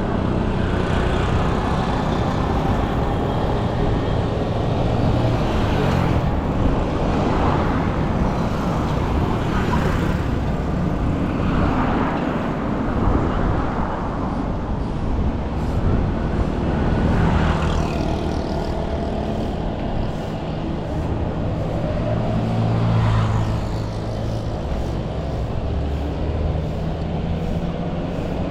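Street traffic: motor vehicles running and passing, a steady low engine hum that swells several times, loudest a little over three quarters of the way through.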